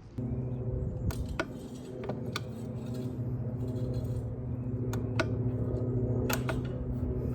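Sharp metallic clicks and taps of hand tools being handled, about eight in all, over a steady low hum.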